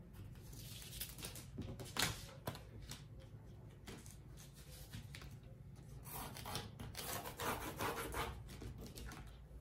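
Soft rubbing and rustling of a hand sliding a cloth tape measure and sheet of pattern paper over a table, with a few brief scrapes.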